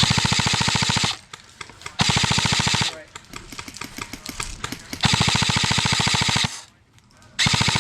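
Airsoft light machine gun firing full-auto in four long bursts of rapid, even shots, each about a second long; the third runs a little longer and the last starts near the end.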